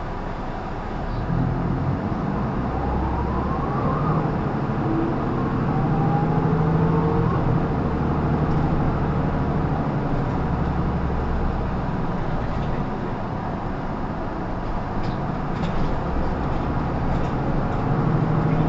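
Isuzu Erga Mio (PKG-LR234N2) city bus's diesel engine under way. Its note steps up about a second in and changes pitch several times as the bus drives on, with a faint rising whine early on.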